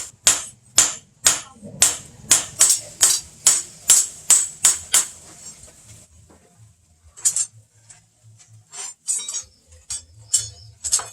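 Blacksmith's hammer striking a knife blade on an anvil in forging, a run of sharp ringing blows at about two to three a second that stops about five seconds in, then a few scattered blows after a short pause.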